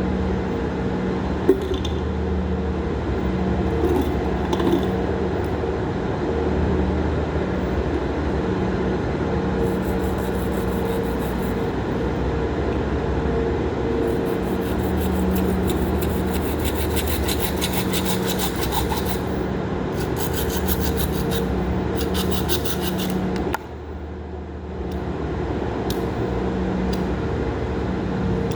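A steady low machine hum, with stretches of fast, even rasping strokes through the middle, like a tool scraping or filing at a workpiece. The hum drops out briefly near the end, then returns.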